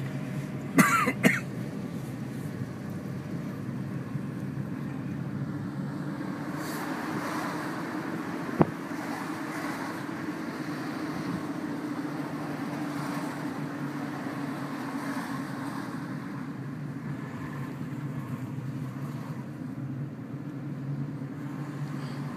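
Steady low drone of a car's engine and road noise heard inside the cabin while driving slowly. Two sharp knocks come about a second in, and a single sharp click about a third of the way through.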